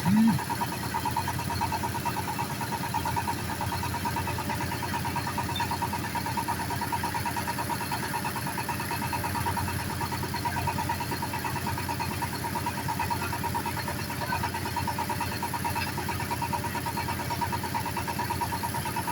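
Engine of a bored-pile drilling machine running steadily, with an even machine hum and a steady tone.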